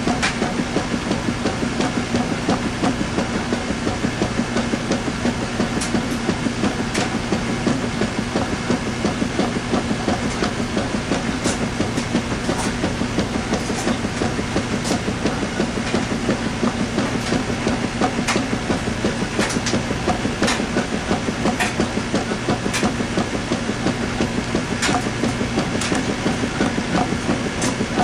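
Washing machine running a load of towels: a steady motor hum under a constant churning rumble, with scattered sharp clicks throughout.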